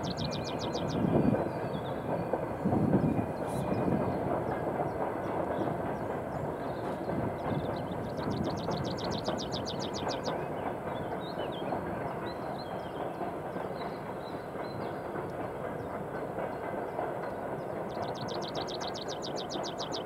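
Heavy freight train's wagons rolling along the track, a steady rumble with rail clatter. There are louder low thumps about a second and three seconds in.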